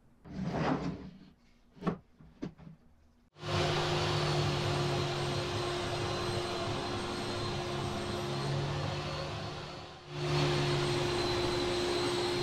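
A few light knocks and handling sounds. Then, a little over three seconds in, the dust collection switches on: a loud, steady rush of air with a low hum. It dips briefly near the end and then runs on.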